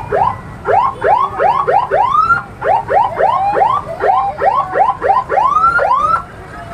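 Electronic siren sounding a rapid series of rising whoops, about three a second, stopping about six seconds in.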